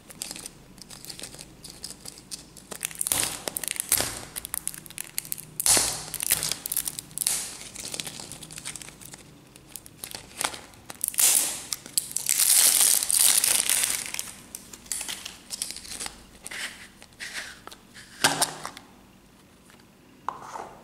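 Printed plastic shrink-wrap crinkling and tearing as it is peeled off a plastic surprise egg, with a longer loud tearing stretch about two-thirds through and a sharp click near the end.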